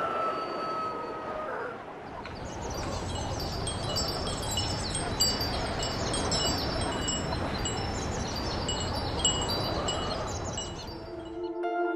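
Wind chimes tinkling with many short, high, ringing notes over a low rushing whoosh, from about two seconds in until near the end. A held tone sounds in the first two seconds, and steady music with long held notes comes in just before the end.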